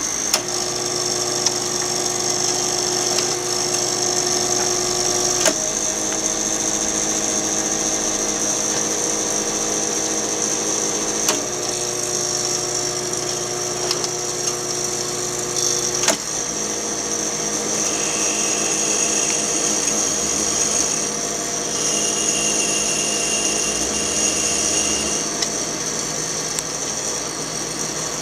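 1967 Accura Videocom 1000 slide projector running with its lamp on, its motor and cooling fan giving a steady hum with a high hiss. Three sharp clicks come several seconds apart, and the hum's pitch shifts slightly at each one.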